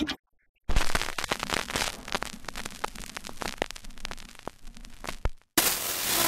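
Old-film crackle effect, dense with sharp clicks and pops, under a film-leader countdown. It stops suddenly, and about a second of television static hiss follows near the end.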